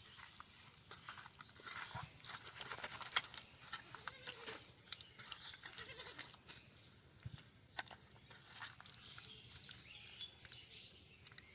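Hands mixing raw rohu fish pieces with mustard, poppy-seed and spice pastes and mustard oil: small wet squelches and irregular sticky clicks. A faint animal bleat sounds in the background about four seconds in.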